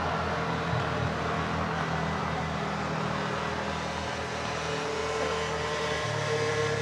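A steady, low motor hum, with a thin, higher steady tone joining about five seconds in.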